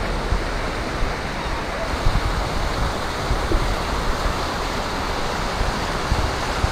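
Fast-flowing floodwater rushing through a street, a steady wash of water noise, with wind rumbling on the microphone.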